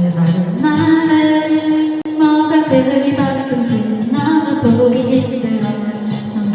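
Music with a woman singing long held notes over a steady accompaniment, with a brief break about two seconds in.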